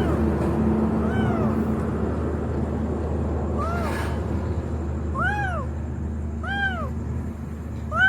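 A cat meowing repeatedly: about six short meows, each rising and then falling in pitch, spaced a second or two apart. A steady low hum runs underneath.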